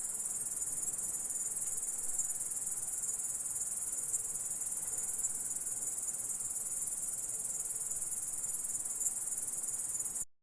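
An orthopteran insect (grasshopper/cricket kind) stridulating: a continuous, very high-pitched, even buzzing trill that cuts off suddenly just before the end.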